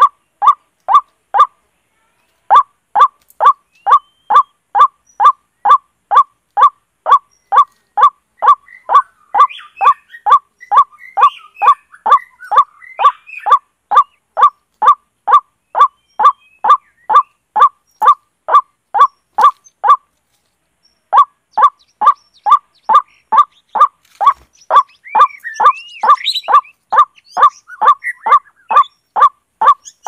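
A bird call repeated over and over, the same loud short note about three times a second, breaking off for about a second twice, played as a lure for bird trapping. Fainter chirps and twitters of other birds come in around the middle and near the end.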